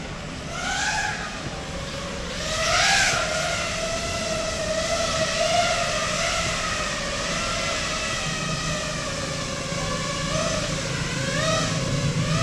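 Five-inch FPV quadcopter with Emax Eco 2207 2400Kv motors and Gemfan 51433 three-blade props, whining as it flies, the pitch swooping up and down with the throttle. It is loudest about three seconds in, with further sharp rises in pitch about a second in and again near the end.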